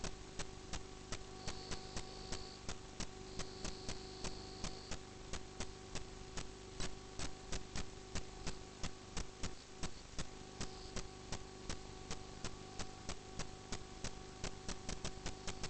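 Steady electrical mains hum with fast, uneven ticking, about three clicks a second, typical of a sewer inspection camera system's recording.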